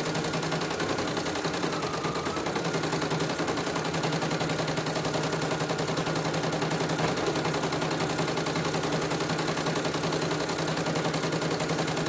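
CNY computerized embroidery machine running at steady speed, its needle mechanism clattering in a rapid, even stitch rhythm over a steady motor hum. It is test-stitching a design after its rotary hook was sanded smooth and readjusted rather than replaced.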